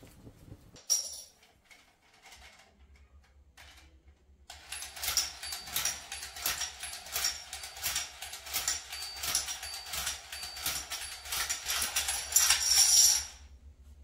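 Electric toy domino train running on a tiled floor, its motor whirring as it clicks out plastic dominoes one after another, about two or three a second. The clicking grows loudest near the end, then stops abruptly.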